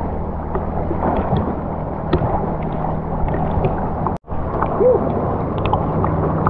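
Muffled sloshing of sea water with a steady low hum beneath it and a few faint clicks. The sound drops out for an instant about four seconds in.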